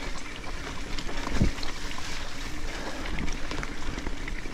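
Trek Supercaliber mountain bike riding over a rough, wet dirt track: steady tyre rumble with occasional knocks over bumps, the strongest about one and a half seconds in. Wind noise on the body-mounted GoPro microphone.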